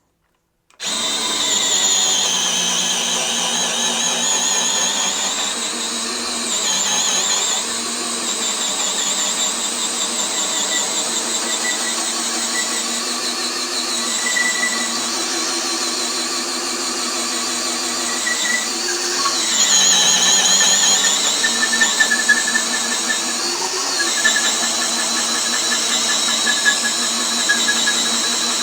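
DeWalt DCD796 20V brushless cordless hammer drill in low gear (speed 1) boring a large hole through lumber, starting about a second in. Its motor whine wavers steadily and dips in pitch a few times as the bit loads up in the wood.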